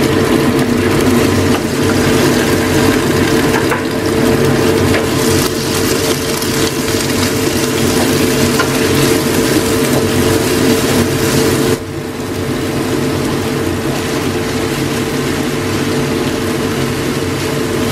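Minced chicken frying with shallots and garlic in a frying pan, sizzling as a wooden spatula stirs it; later shredded cabbage and carrot are frying, slightly quieter. A steady low hum runs underneath.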